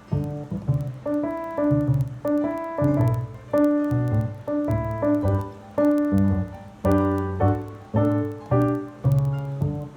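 Roland RD-300NX digital stage piano being played: piano notes struck about two a second over a sustained low bass line.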